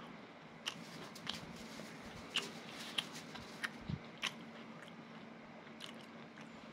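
Someone eating: a run of sharp crunches and clicks, about one every half second for the first four seconds or so, then a few fainter ones. A dull thump comes near the middle, over a faint steady hum.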